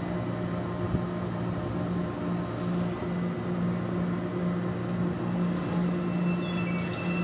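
CPTM Series 9500 electric multiple unit moving slowly alongside the platform, with a steady low electric hum from its traction equipment. Two short high hisses come about two and a half and five and a half seconds in.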